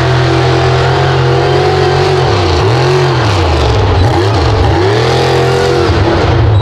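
Ford mud truck's engine running at high revs, held steady at first and then revved up and down several times from about two seconds in, as its lugged tires spin and fling mud.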